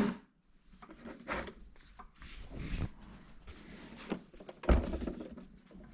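Scattered knocks, clicks and rubbing as parts of a coffee machine are handled, with one louder knock about three-quarters of the way through.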